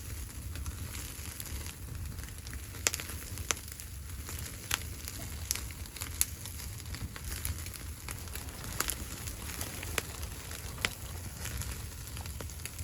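Wood fire crackling, with sharp irregular pops a second or so apart over a steady low rumble.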